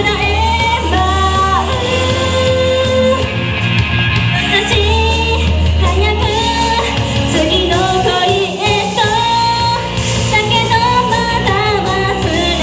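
A female vocalist singing live into a handheld microphone over a J-pop backing track with a steady bass line.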